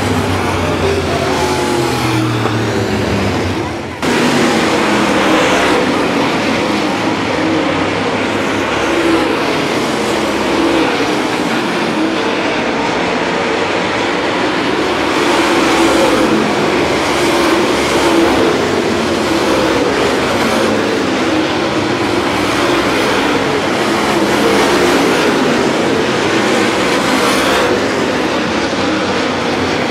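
Several dirt late model race cars running hard on a dirt oval, their V8 engines rising and falling in pitch as the pack goes by. The sound dips and breaks off sharply about four seconds in, then carries on.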